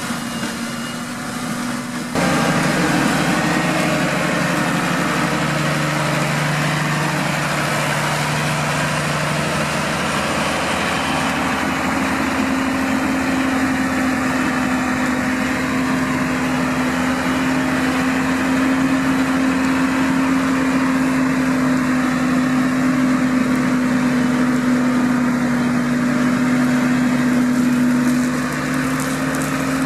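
New Holland TM140 tractor running at working revs, driving a Shelbourne reach-arm flail cutter whose spinning head is cutting verge grass. It makes a steady drone over a constant rushing noise, which gets louder about two seconds in.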